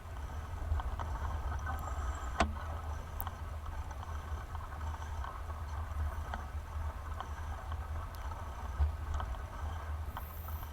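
Steady low rumble of wind buffeting the microphone during a bicycle ride, with a single sharp click about two and a half seconds in.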